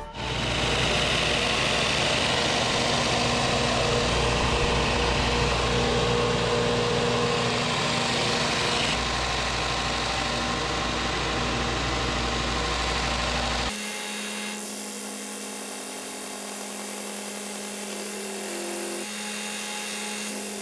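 Bucktool combination sander with a 4-inch belt and an 8-inch disc, running steadily while a hardwood cutting board is pressed against it to sand off saw burn marks. About 14 seconds in, the sound drops to a quieter, thinner hum.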